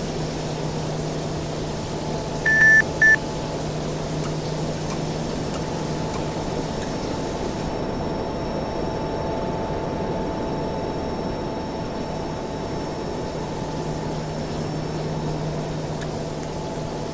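Air conditioner running with a steady hum and low drone. About two and a half seconds in, two short electronic beeps sound close together.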